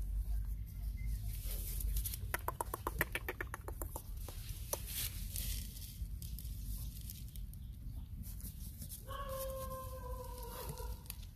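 A drawn-out animal call near the end, about two seconds long and falling slightly in pitch, from either the puppy whining or a nearby rooster. About two seconds in there is a quick run of about a dozen clicks, and a low steady rumble underlies it all.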